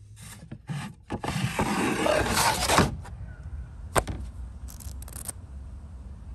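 A plastic storage bin dragged along a wooden shelf: a scrape lasting about two seconds, after a couple of short knocks. A sharp tap follows about four seconds in, then a few light rustles.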